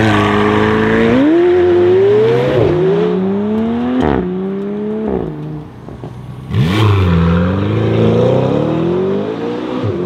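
McLaren 720S twin-turbo V8 launching hard and accelerating away, its note climbing and dropping at two quick upshifts before fading into the distance. About six and a half seconds in, a second car's engine launches and climbs steadily under hard acceleration.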